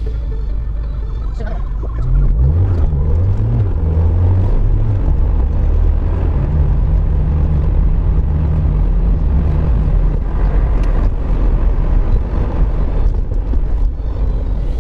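Car engine and road noise heard inside the cabin on a wet road. About two seconds in the sound grows louder and the engine note climbs as the car accelerates, then it settles into a steady cruising drone.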